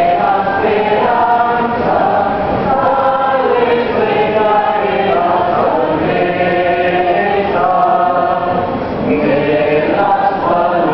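A crowd singing a hymn together, many voices on long held notes in phrases.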